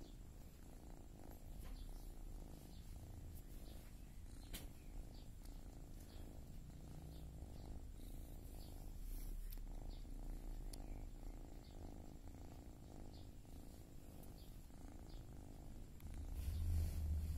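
Domestic cats purring close up while a grown kitten nurses from its mother: a faint, steady low rumble that grows louder near the end.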